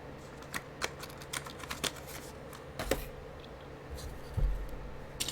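Mechanical keyboard keys being pressed in an uneven, sparse series of sharp clicks on an Akko 5075S custom keyboard with hand-lubed linear switches, as a switch sound test.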